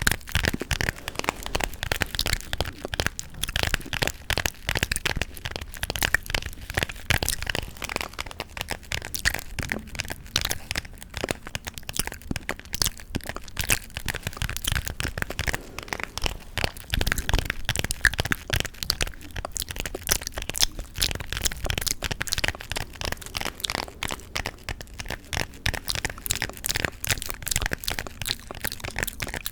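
Close-miked gum chewing and tapping: a dense, unbroken run of sharp clicks and cracks.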